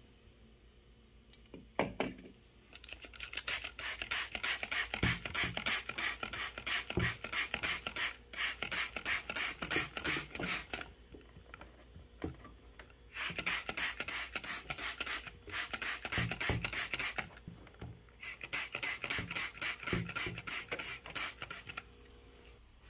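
Rapid, rhythmic scraping strokes, several a second, in three long runs separated by short pauses.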